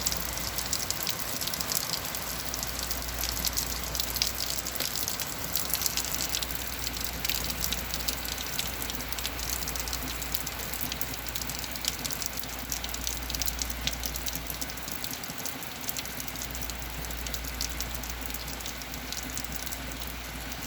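Heavy rain pouring steadily, a dense patter of drops striking the porch.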